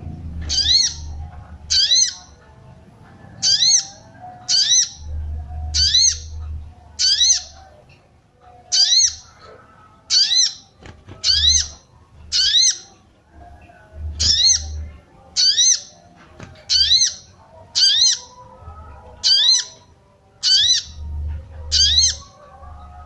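A female sogon (sogok ontong) sunbird repeats a short, high 'cuit cuit' chirp about once a second, about eighteen times in a row. This is the call keepers play to bring male sogon into song and breeding condition.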